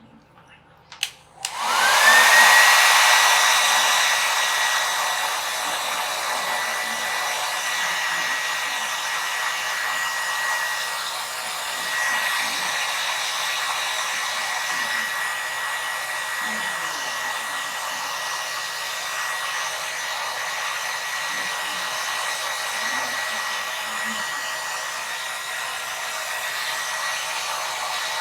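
Handheld hair dryer switched on with a couple of clicks about a second in, its motor whine rising quickly to a steady high tone over the rush of blown air, then running steadily.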